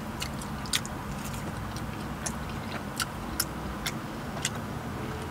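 A person chewing a mouthful of loaded fries with steak, with scattered small wet mouth clicks.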